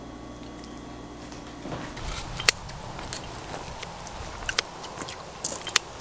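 A steady low refrigerator hum with fixed tones, which the room is quiet enough to make loud. About two seconds in it gives way to a few sharp metallic clicks and snips of kitchen scissors and tongs cutting grilled steak.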